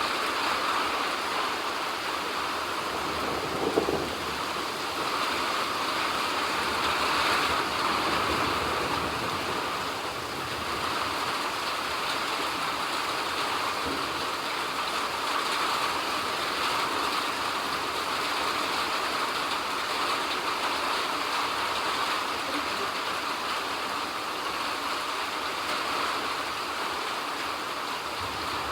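Steady rain falling, an even hiss of drops. A brief louder sound breaks through about four seconds in.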